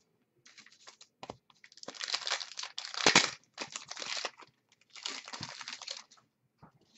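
Hands handling trading cards and a crinkly pack wrapper: dry rustling and crinkling in two long bursts, loudest about three seconds in, with small clicks of cards around them.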